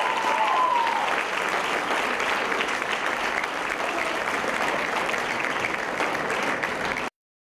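Audience applauding steadily after a stage dance performance, then cut off abruptly about seven seconds in.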